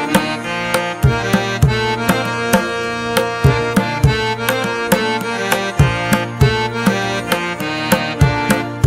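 Background music with a drum beat and held melodic notes.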